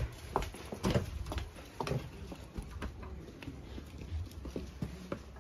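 Footsteps walking along a corridor, a run of short knocks about two a second over a low rumble of camera handling.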